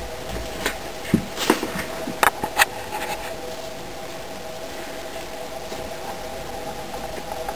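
Fresh grass blades crackling and snapping a few times in the first three seconds as the bunch is handled and bitten, over a steady low hum.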